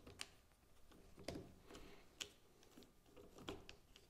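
A handful of faint, separate clicks and light knocks as a right-angle attachment is fitted onto the head of a cordless drill whose chuck has been removed.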